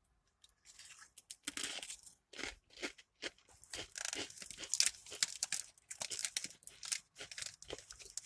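Crinkling of a Doritos bag and crunching of the chips as they are handled and eaten close to the microphone: a dense run of irregular crackles starting about half a second in.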